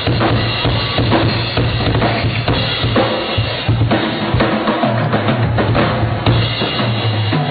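Rock drum kit played live, hard and fast, with dense bass drum and snare hits.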